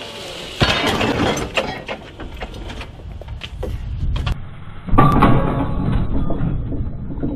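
Gen 3 Toyota 4Runner dropped onto a boulder on its welded hot-rolled steel rock slider: a heavy impact with metal clanking and the truck's body rattling, with two loud hits, one about half a second in and another about five seconds in.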